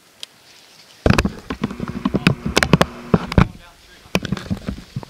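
Dense crackling, crunching and knocking of someone moving quickly through dry leaves and brush, with handling knocks on the camera, starting about a second in. A low buzz joins it for a second or two.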